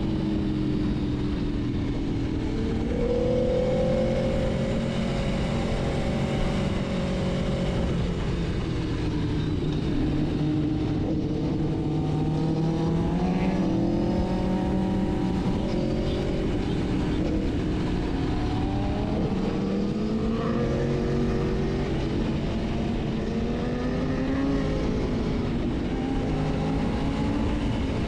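Sport motorcycle engine heard while riding, its pitch rising and falling again and again with throttle and gear changes, over a steady rush of wind.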